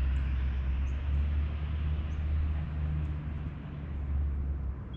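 Street traffic: a steady low vehicle rumble with road hiss.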